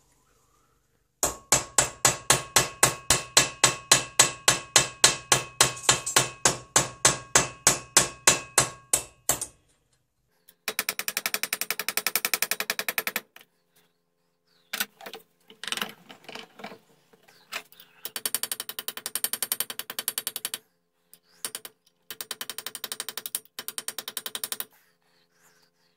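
A small hammer striking a brass ramrod pipe held over a rod in a steel bench vise, forming it. First comes a long run of ringing metal blows at about four a second, then several short bursts of much faster, lighter tapping.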